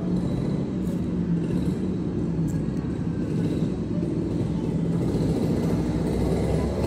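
Domestic cat purring steadily, a continuous low rumble right at the microphone.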